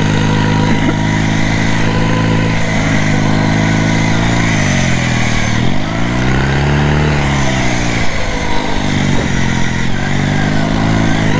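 A riding lawn mower's engine runs loudly through an aftermarket exhaust while it drives. The revs hold steady, drop and climb back about halfway through, then dip and rise again near the end.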